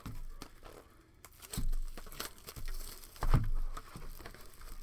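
Plastic wrapping crinkling and tearing as a trading card box is handled and opened, with two dull thumps, one about one and a half seconds in and a louder one a little past three seconds.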